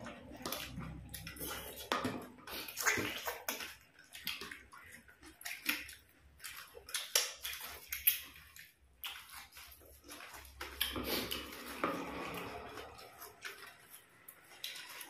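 Wet eating sounds of rice and chicken curry eaten by hand: chewing and lip smacking, with fingers squishing rice on the plates. Many small irregular clicks and crackles run through it.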